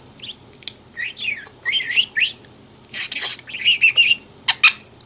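Pet budgerigar warbling and chattering: a run of short, quickly rising and falling chirps, broken by a few harsh, scratchy notes and sharp clicks.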